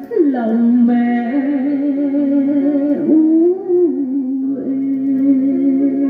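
Vietnamese song played back from cassette tape on a Victor three-head stereo cassette deck. A sustained lead melody with vibrato slides down just after the start and then wavers on held notes over the accompaniment.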